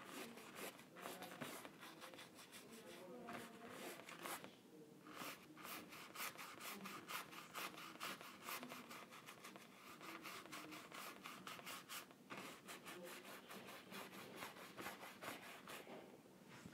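Faint paintbrush strokes scrubbing on a canvas, a quick run of short scratchy strokes with brief pauses.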